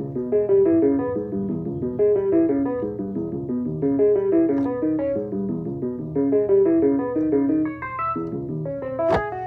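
Korg opsix FM synthesizer playing a quick, flowing pattern of short electric-piano-like notes, several a second, over a steady low tone. A sharp click about nine seconds in.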